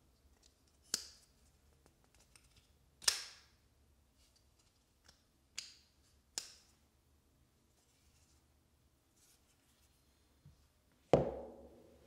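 Divo Pony Stout folding knife being opened and closed by hand, with four sharp metallic clicks as the blade snaps into place and is closed, spread over the first six or so seconds. Near the end comes a louder, deeper thump with a short ringing tail.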